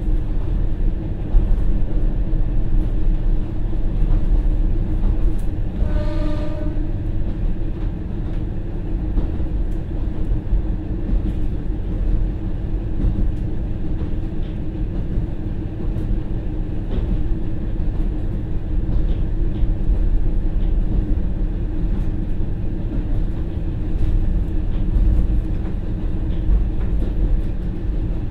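JR Hokkaido KiHa 40 diesel railcar running under way, heard from inside the passenger cabin: its original, non-direct-injection DMF15HSA engine drones steadily, with the transmission in converter stage, and the wheels click over short rail joints. About six seconds in, the train's horn sounds one short blast.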